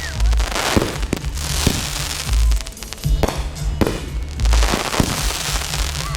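Fireworks going off: deep booms about every two seconds, with sharp cracks and crackling between them, over music.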